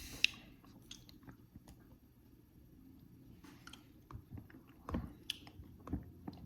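Faint, irregular small clicks and soft wet-sounding ticks close to the microphone over a low steady hum, like mouth or handling noises; a few stronger clicks fall about five and six seconds in.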